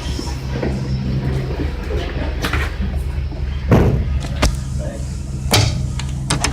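Building-site noise: a steady machine hum with several sharp knocks and bangs, the loudest about halfway through.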